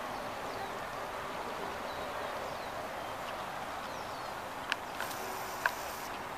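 Outdoor ambience: a steady background hush with small birds chirping faintly now and then, and two sharp clicks about a second apart near the end.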